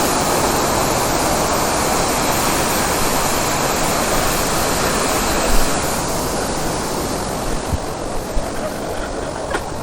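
Steady rush of a waterfall running full after heavy rain, easing a little after about six seconds. A few soft knocks sound near the end.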